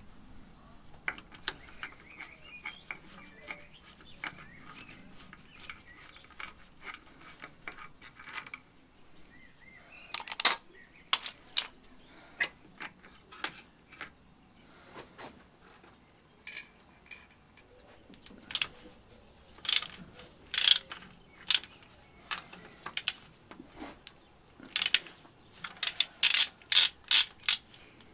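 Socket ratchet wrench clicking as bolts are undone, in irregular runs of sharp clicks and small metal knocks, loudest and quickest near the end.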